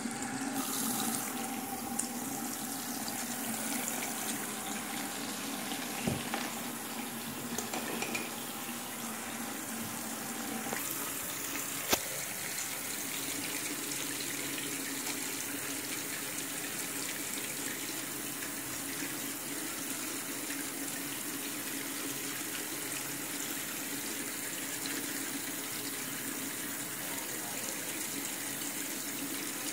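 Bathroom sink tap running steadily into the basin and down the drain. A single sharp knock sounds about twelve seconds in.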